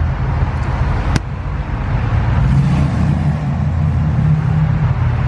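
Car driving, a steady low road rumble with one sharp click about a second in.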